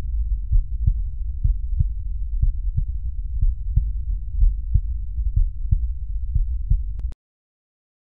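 Normal heart sounds recorded through an electronic stethoscope: a steady low lub-dub about once a second, with the short pause after each first sound and the longer pause after each second sound. The second sound marks closure of the aortic and pulmonary valves. The recording cuts off suddenly about seven seconds in.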